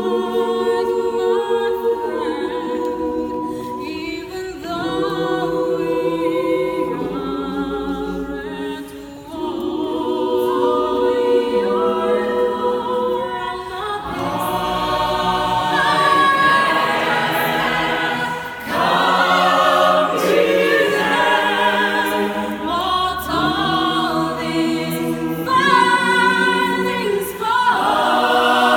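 Mixed choir of men's and women's voices singing a cappella in sustained chords, swelling louder about halfway through.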